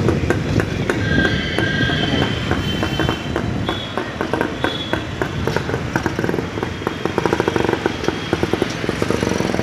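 Motorcycle engine running on the move, its exhaust giving a rapid, even stream of pops, with street traffic around it.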